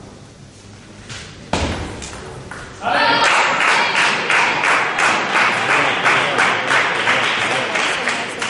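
A couple of knocks, then a shout and an audience cheering with fast, even clapping, about three claps a second.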